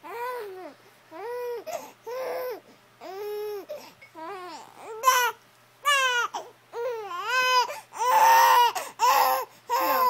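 Baby making a run of short, cry-like vocal sounds, about one a second, each rising and falling in pitch, growing louder in the last few seconds.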